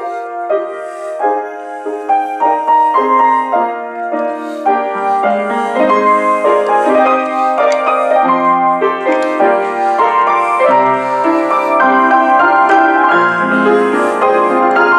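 Solo piano playing a piece written to evoke bells: layered chords that swell in the first few seconds, with deeper bass notes coming in about five seconds in.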